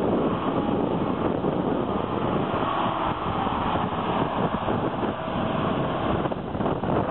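Diesel engines of two County four-wheel-drive tractors running steadily under load while pulling ploughs.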